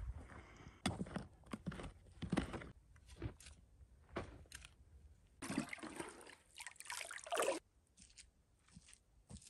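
A few scrapes and knocks of soil being worked by hand in a dirt pit, then water sloshing and pouring for about two seconds as a plastic bucket is filled, followed by faint footsteps on dry ground.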